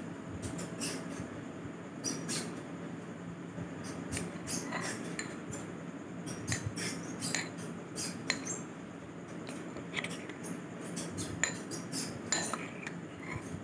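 Metal spoon stirring and scooping saucy chilli chicken in a ceramic bowl: many small wet clicks and squelches, several a second, with a faint clink now and then, over a steady low hum.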